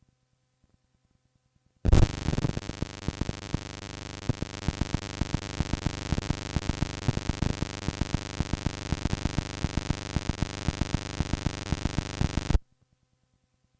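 Loud, distorted music thick with crackles, starting suddenly about two seconds in and cutting off abruptly near the end; before it only a faint hum.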